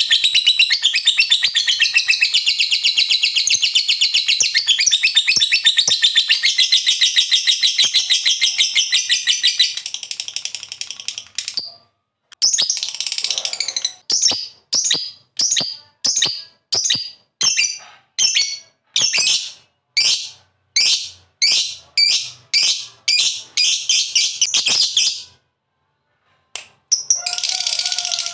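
Lovebird giving its long 'ngekek' chatter, a fast, high-pitched run of rattling notes. For about the first eleven seconds it is one continuous stream. After a brief break it comes as a string of short bursts, about two a second, which stop near the end and then start again.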